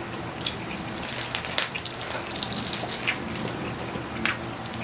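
Crispy pata's deep-fried pork skin crackling as it is torn apart by hand: a dense run of fine crackles, with a few sharp snaps.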